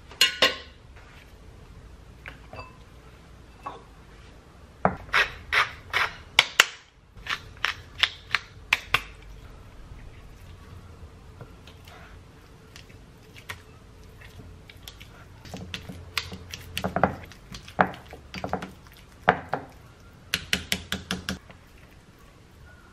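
A utensil clinking and scraping against a ceramic bowl as avocado is mashed, in clusters of quick, sharp taps with quieter stretches between them.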